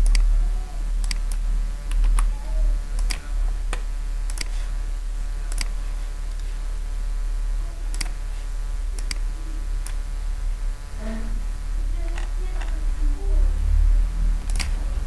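Computer mouse clicking, irregular single clicks a second or so apart, with a few longer gaps. A steady low hum runs underneath.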